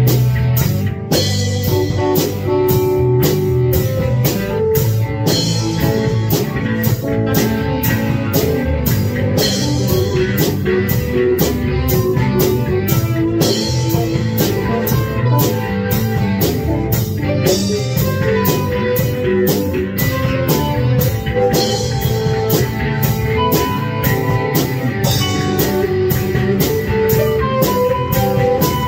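Electric guitar jamming a rock riff over drums keeping a steady beat.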